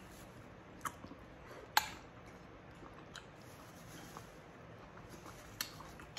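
A person chewing food quietly, with a few short, sharp clicks, the loudest about two seconds in.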